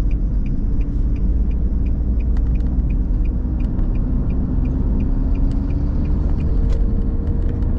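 Steady low rumble of a vehicle driving along a road, with a faint engine tone that drifts slowly in pitch.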